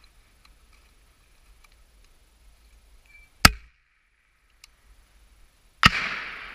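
M320 40 mm grenade launcher fired once with a short, sharp report about three and a half seconds in. About two and a half seconds later comes a louder blast whose rumble rolls away slowly: the grenade bursting at the target downrange.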